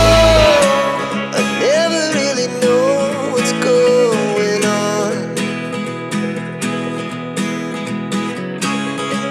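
Background pop song: acoustic guitar with a singing voice carrying the melody; the bass drops out about half a second in, leaving a lighter guitar-led section.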